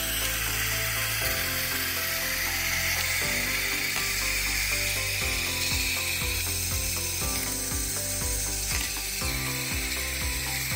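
LeBlond Regal lathe servo shift unit running on compressed air during a bench test, its control rod turned through the detents: a run of ratcheting clicks and knocks as the shift positions step and the pistons move. Under the clicks are a steady hiss of air bleeding off the unsealed unit and a steady low hum from the shop air compressor.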